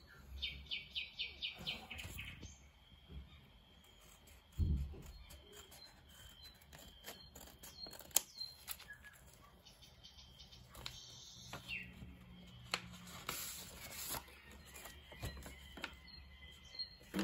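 Scissors snipping open a paper envelope, with paper rustling, handling clicks and a dull thump about five seconds in. A bird chirps a fast trill near the start.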